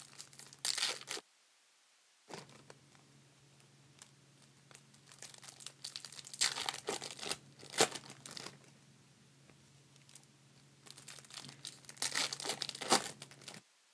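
Plastic trading-card pack wrappers being torn open and crinkled by gloved hands, in three spells of crackling: briefly about a second in, again from about five to eight seconds, and near the end.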